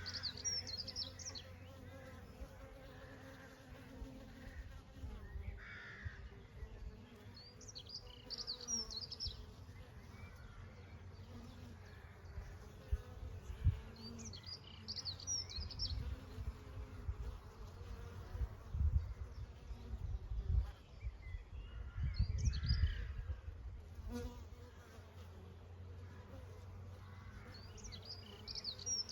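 Honey bees buzzing in a steady drone, with short high chirps recurring about every seven seconds. Low rumbling swells in the middle stretch, the loudest part.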